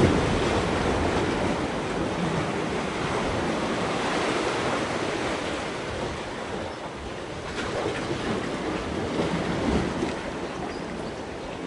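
Steady rushing of sea surf washing among concrete breakwater blocks, with some wind on the microphone.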